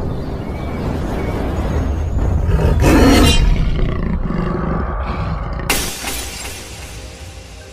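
Intro sound effects: a deep, rumbling roar that swells to its loudest about three seconds in, then a sudden glass-shattering crash near the six-second mark that rings off and fades out.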